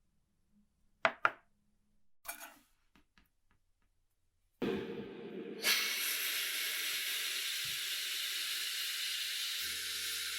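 Two sharp clicks, a short scrape, then a sudden strong, steady hiss of spraying air or gas that brightens about a second after it starts. A low steady hum comes in near the end.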